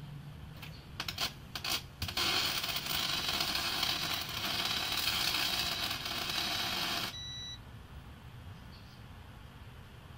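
Electric welding arc on aluminium, from a welder powered through a 12 V to 220 V power inverter with a 0.5 farad capacitor added for arc starting. The arc catches with a few short crackles about a second in, then burns with a steady crackling hiss for about five seconds and cuts off abruptly, followed by a brief electronic beep.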